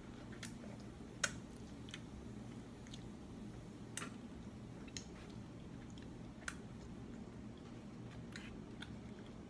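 A person chewing pizza and licking her fingers: wet mouth clicks and smacks scattered throughout, the loudest a little over a second in, over a low steady hum.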